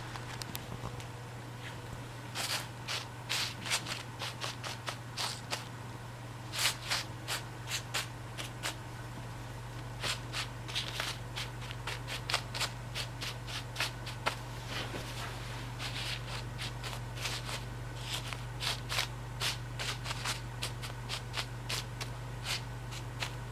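Hands handling things, with irregular rustles and clicks scattered throughout, over a steady low hum.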